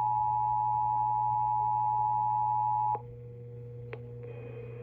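Emergency Alert System attention signal: a steady two-tone alert tone that cuts off sharply about three seconds in. After it comes a much fainter steady lower tone with a single click.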